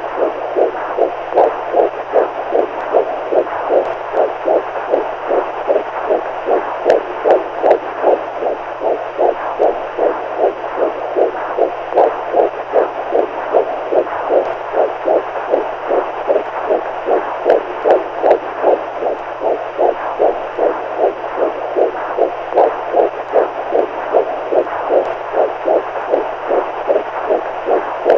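Heartbeat sound played as a sleep aid for babies: soft pulsing beats in a steady, even rhythm over a constant hiss.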